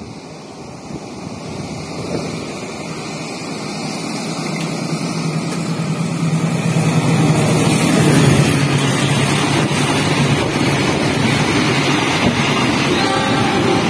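A passenger train passing on the adjacent track: the diesel-electric locomotive's engine hum grows louder as it approaches, then the coaches go by close with a steady rushing of wheels and air.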